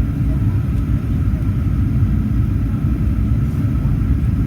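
Cabin noise inside a Boeing 737-800 airliner: the steady low rumble of its CFM56 engines and airflow, with a thin steady hum above it.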